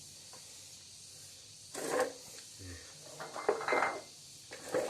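Dishes and a glass being handled: a few short clinks and knocks in scattered bursts, starting after a quiet first second and a half.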